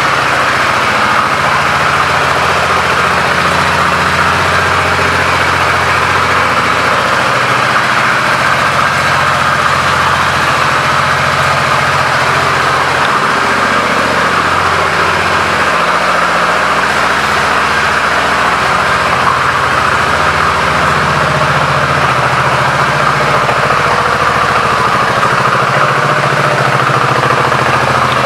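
Suzuki VL800 Volusia's 805 cc V-twin engine idling steadily.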